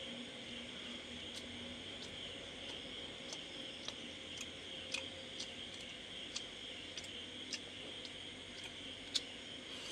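A steady chorus of night insects, crickets, with a dozen or so sharp clicks scattered through it.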